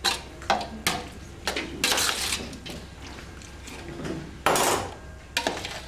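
Plastic cheese molds knocking and scraping against a stainless-steel bowl and tray as moist feta curd is scooped into them. A run of sharp clacks, with two longer scraping rushes, the loudest about four and a half seconds in.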